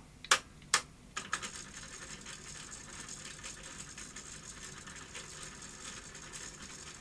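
Marantz SD420 cassette deck transport: two sharp clicks as the mechanism is switched over, then from about a second in a faint steady whirr with a light rattle as the tape winds. The wind is sluggish and struggling, a sign of a worn, slipping idler drive.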